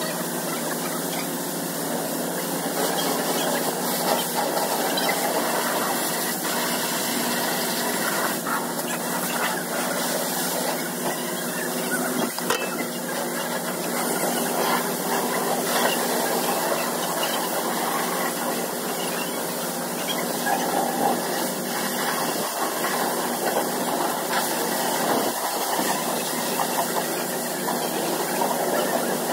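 Pressure-washer wand spraying water onto a car, a steady hiss over the hum of the washer's pump.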